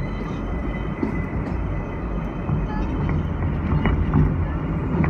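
R160A subway car running along elevated track, heard from inside: a steady rumble of wheels on rail with a few sharp clicks in the second half. The sound is muffled.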